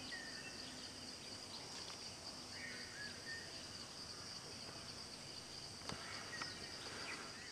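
Forest insects droning steadily at a high pitch, with a few short whistled calls about three seconds in and a single click about six seconds in.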